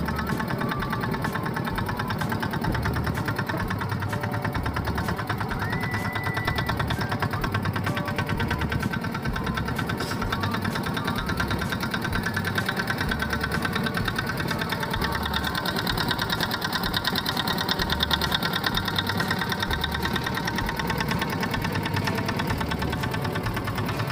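Small motor boat's engine running steadily while the boat is under way, an even, rapid chugging with no change in pace.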